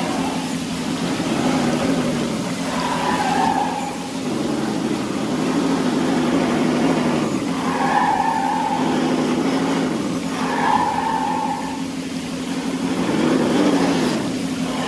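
Electric motor and gearbox of a scale RC rock crawler whining as it drives through shallow water, with the pitch rising and falling with the throttle several times. A higher whine comes and goes every few seconds over a steady rush of flowing water.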